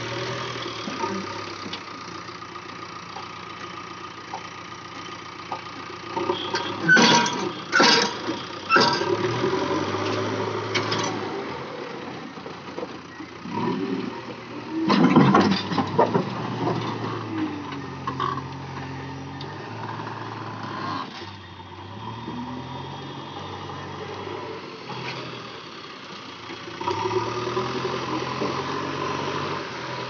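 JCB 3DX backhoe loader's diesel engine running while the backhoe arm digs and loads earth, its note stepping up and down as the machine works. A few sharp knocks come from the working machine, three about 7 to 9 seconds in and a louder one about 15 seconds in.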